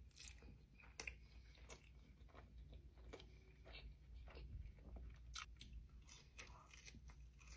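Faint close-up chewing of a breaded buffalo chicken sandwich: soft, irregular mouth sounds with scattered small crunches.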